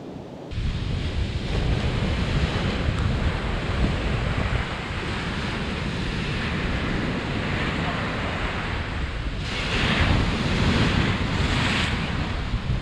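Waves breaking and washing up a sandy beach, with wind buffeting the microphone as a heavy low rumble. A louder surge of surf comes about ten seconds in.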